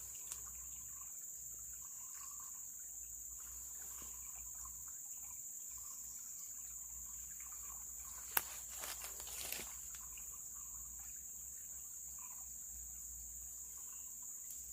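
Steady high-pitched insect drone from the riverside vegetation. A single sharp click comes about eight seconds in, followed by a brief rustle.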